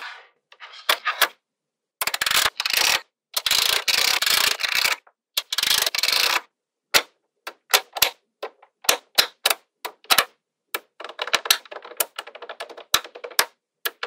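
Small magnetic balls clicking and clattering together as rows are snapped onto a sheet of balls by hand. Dense rattling runs from about two to six seconds in, then single sharp clicks about once a second, then rapid clattering again near the end.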